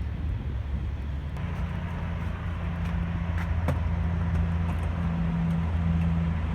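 Car driving along, a steady low engine and road drone.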